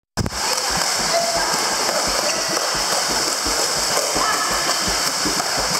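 Pool water splashing and churning steadily as a Labrador Retriever paddles hard with its front paws, with low thuds about three times a second.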